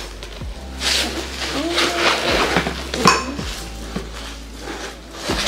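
A cardboard box being opened and glass drinking tumblers clinking and knocking together as they are handled, with one loud clink about three seconds in.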